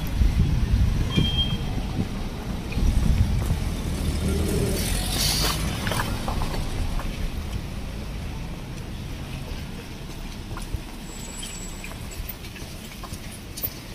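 Street traffic: a motor vehicle's low rumble, loudest in the first few seconds and fading away, with a short hiss about five seconds in.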